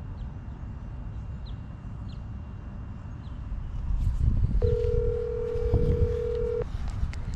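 Phone ringback tone of an outgoing call, one steady two-second ring about two-thirds of the way in, over a low rumble of wind on the microphone.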